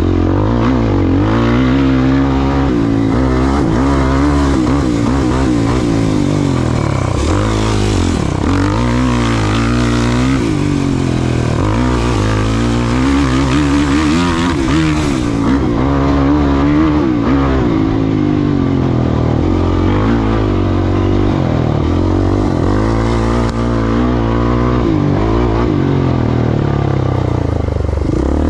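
Off-road race vehicle's engine running hard, its pitch climbing and dropping over and over as the throttle is worked on and off.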